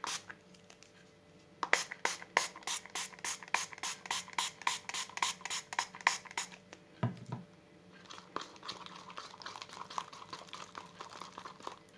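Slime being stirred in a container: quick, regular scraping strokes, about four or five a second, as the mixture thickens and sets with the added thickener. A dull knock about seven seconds in, then softer, faster stirring.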